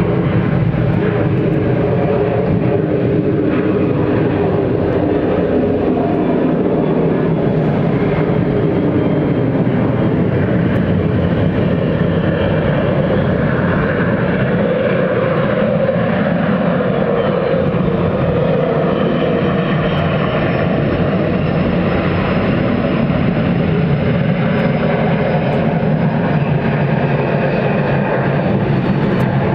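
Jet noise from a McDonnell Douglas MD-88 airliner's rear-mounted Pratt & Whitney JT8D turbofans, loud and steady, as the jet lands and rolls along the runway. A faint high whine slowly falls in pitch through the second half.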